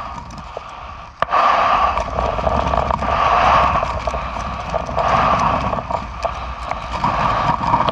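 Gale-force wind buffeting the microphone in gusts that swell and fade every second or two, with knocks and scrapes from a Honda outboard motor being hauled up over a sailboat's rail, one sharp knock about a second in.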